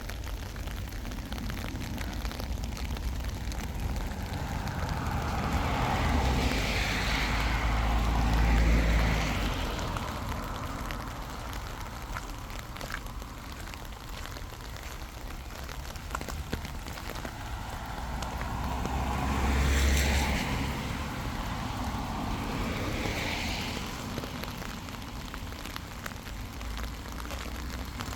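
Outdoor background noise with two road vehicles passing by, the first building up and fading about a quarter of the way in, the second about two-thirds of the way in.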